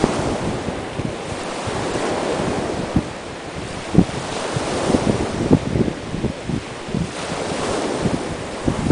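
Sea surf breaking and washing on the shore, with strong wind buffeting the microphone in irregular low thumps.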